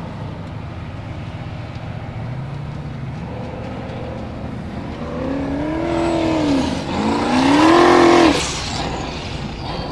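Formula Offroad buggy's engine revving hard in rising and falling sweeps as the buggy claws up a steep dirt slope. The revs peak at their loudest near the end, then cut off sharply as the buggy rolls over.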